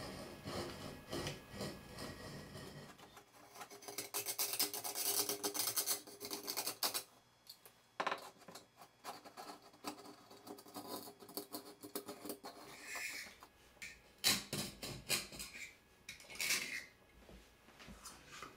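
Utility knife blade scraping and cutting along old silicone caulk in a shower's wall-to-floor seam, in irregular stretches of scratchy scraping with clicks and short pauses, loudest a few seconds in.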